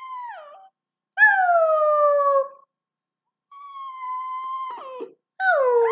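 A dog howling to its owners in three long, high, pitched calls, the first and last sliding down in pitch. This is the 'rah, rah, rah' talking that she does with the people in her pack.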